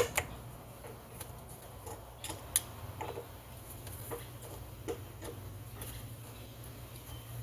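Scattered small metallic clicks and taps of a screwdriver and loose parts as the screws are worked out of a small Tillotson chainsaw carburetor, with a sharp click at the start and irregular lighter ticks after it.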